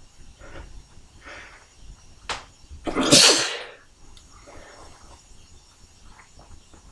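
A person sneezing once, loudly, about three seconds in, after a few quick breaths in and a sharp catch of breath; a softer breath out follows.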